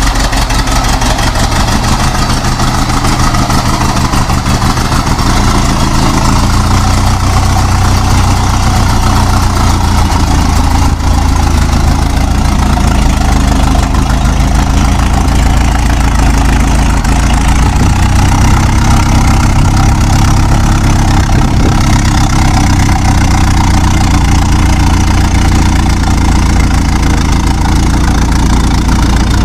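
Old car engine idling steadily and evenly.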